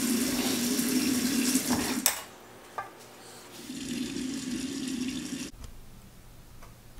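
Kitchen tap running into a stainless steel sink as spray gun parts are rinsed under the stream. About two seconds in there is a sharp click and the water sound drops away. It comes back softer for a couple of seconds, then stops.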